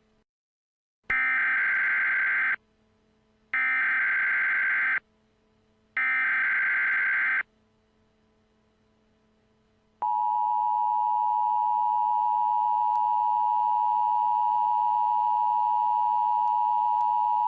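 Emergency Alert System tones: three short bursts of the screeching digital header data, about a second apart, then the steady two-tone attention signal starting about ten seconds in.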